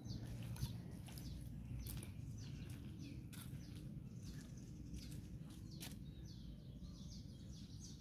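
Small birds chirping faintly in short, repeated falling notes over a low steady rumble, with a few faint clicks.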